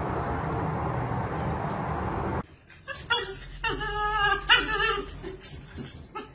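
A steady rushing noise cuts off about two and a half seconds in. Then a dog whines and yips in a run of short cries that rise and fall in pitch.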